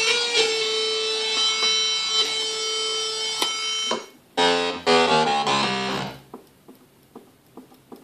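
Hammond XB-2 organ holding a note with a buzzy, overtone-heavy tone that cuts off about four seconds in, followed by a short run of lower notes and then faint clicks. The sound is very distorted, the sign of a fault in the organ.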